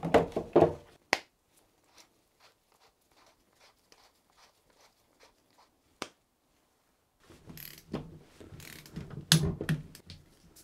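Torque wrench being handled. Its plastic case clacks open. Then a long run of faint, even ticks comes as the wrench's handle is turned to set it to 22 newton metres. In the last few seconds the wrench ratchets and clunks as it is fitted to a bolt on the saildrive.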